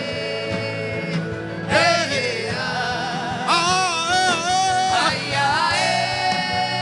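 Worship music: a solo voice singing long held notes with vibrato, in phrases of one to two seconds, over steady sustained instrumental accompaniment.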